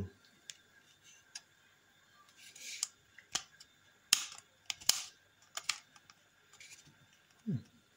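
Hard plastic clicks and short sliding scrapes from the slide power switch of a Dnipro-M GS 98 angle grinder being pushed back and forth by hand, about a dozen sharp clicks at uneven intervals. The switch has a little play but snaps firmly into position.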